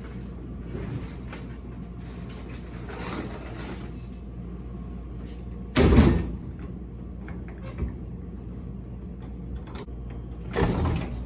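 A snack vending machine being opened and handled: light rattling, a loud metal clunk about six seconds in and another near the end, over a steady low machine hum.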